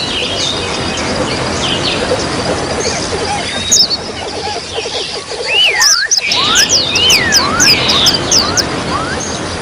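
Small songbirds chirping over a steady trickle of running water. About halfway in the birds break into a quick series of slurred, whistled chirps, several a second, and the water noise dips briefly just before.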